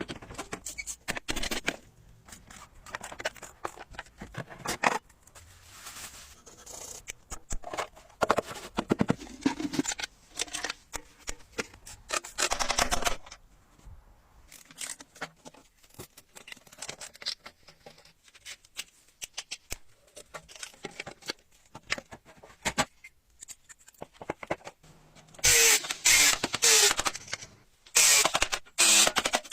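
Metal hand tools clicking, clinking and scraping against rusty bicycle parts, in irregular short bursts. Near the end comes a louder run of harsh scraping.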